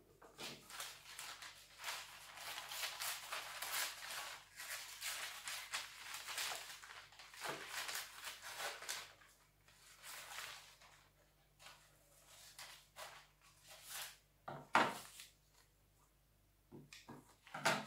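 Newspaper pages rustling as they are handled and turned over for about ten seconds, then a few brief rustles near the end.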